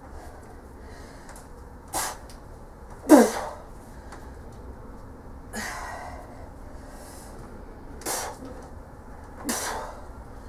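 A woman's sharp, forceful breaths of effort, five short blasts a second or two apart, the strongest about three seconds in, as she strains to bend a grade 5 steel bolt by hand.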